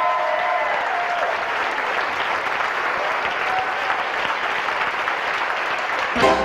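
Audience applauding steadily, with a voice calling out over it in the first second. Music starts just at the very end.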